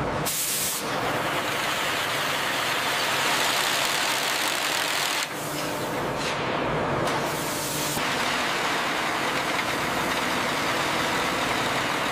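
Heavy metal-working machinery running: a dense, steady hiss over a low mechanical hum. It thins out a little about five seconds in and fills back out about eight seconds in.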